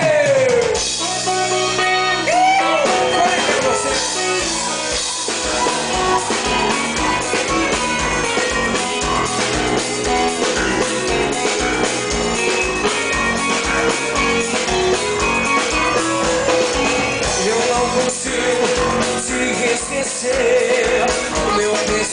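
A live band playing an upbeat dance number. A steady drum beat comes in about three seconds in.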